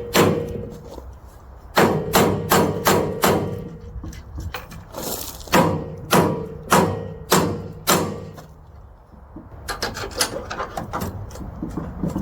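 Hammer striking steel to drive out a rusted clip pin. It comes as two runs of sharp blows, about five or six each with a faint metallic ring, then quicker, lighter taps and clicks near the end as the pin works loose.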